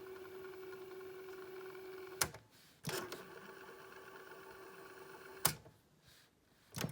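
Cassette mechanism of an ITT Touring 220 boom box: the tape motor whirs with a steady whine, stopped and restarted by sharp clicks of the transport keys about two seconds in, then stopped again by a click later on and switched once more near the end.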